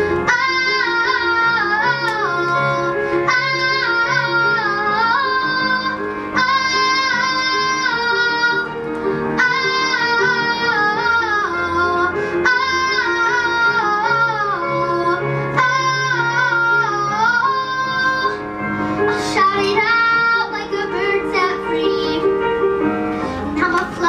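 A young girl singing a ballad solo into a microphone over instrumental accompaniment, holding long notes of about two seconds each with vibrato.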